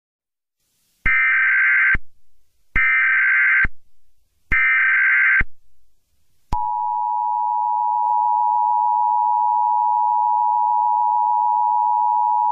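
Emergency Alert System tones: three short bursts of screeching SAME header data, then a steady two-tone attention signal that starts about two-thirds of the way in and holds. Together they mark the start of an emergency alert.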